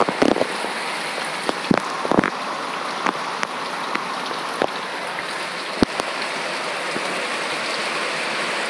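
Heavy rain pouring down steadily, with scattered louder taps of drops landing close by.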